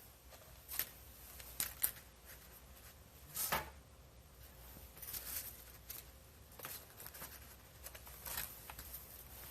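Scattered faint clicks and short rustles of small parts being handled and fitted inside an opened MacBook Pro, with a slightly longer scraping rustle about three and a half seconds in.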